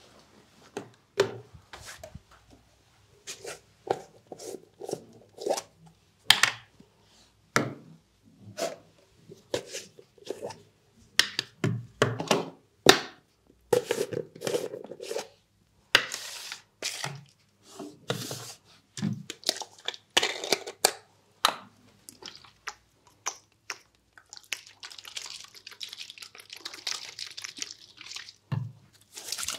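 Close-miked handling of plastic product containers on a barber's counter: a string of clicks, taps and knocks as jars and lids are picked up, opened and set down. Near the end, a longer soft hiss while a plastic bottle of liquid is handled over the palm.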